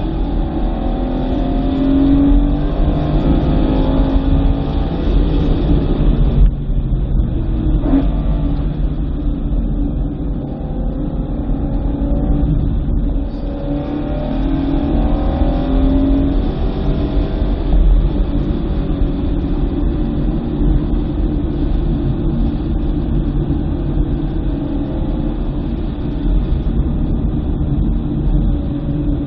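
2009 BMW M3's 4.0-litre V8 under hard track driving, its pitch repeatedly climbing and falling as it accelerates, shifts and lifts. There is a brief sharp drop in engine sound about six and a half seconds in. It runs over a steady rush of road and tyre noise.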